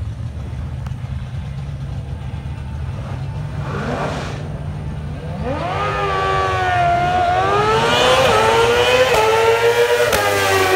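Drag-racing motorcycle launching down the strip and accelerating hard. Its engine note climbs in pitch and grows louder, dropping briefly at each gear change. A low steady engine rumble is heard before the launch, about halfway through.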